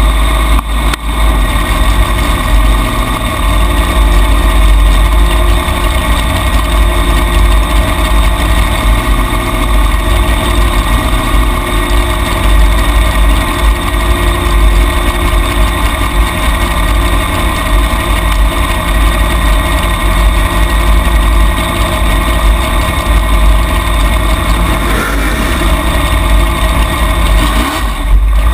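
Junior dragster's single-cylinder engine idling steadily, heard close up from a camera mounted on the car as it rolls slowly toward the starting line.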